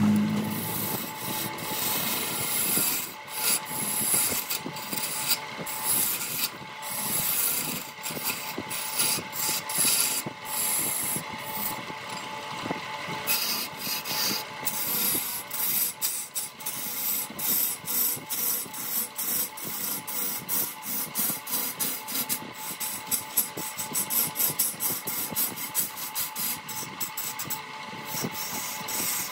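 Wood lathe running with a steady motor whine while a tool scrapes against the spinning wood in short, irregular strokes, which come faster near the end.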